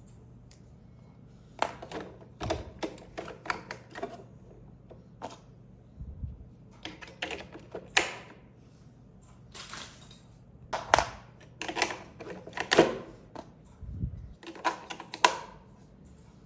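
Irregular run of sharp clicks and taps in quick clusters, with a couple of low thuds, from hard plastic being handled.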